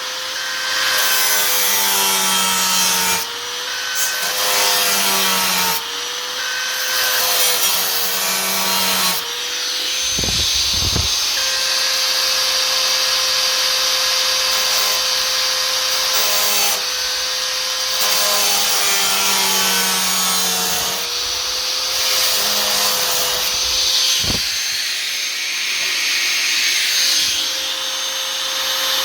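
A power tool cutting sheet steel. Its motor runs with a steady whine that breaks off and restarts every few seconds as the cut goes on. Two low knocks come about ten and twenty-four seconds in.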